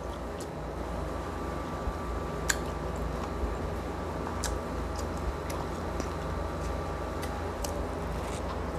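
Close-miked chewing of roast pig's-head lechon: moist mouth sounds with scattered sharp little clicks, about nine in all, over a steady low hum.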